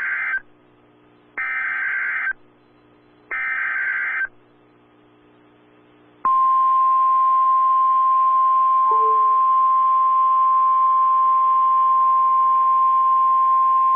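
Emergency Alert System SAME header: three buzzing digital data bursts, each about a second long and about a second apart. About six seconds in, the steady single-pitch 1050 Hz National Weather Service alert tone starts, louder than the bursts. Together they signal a new weather warning coming over NOAA Weather Radio.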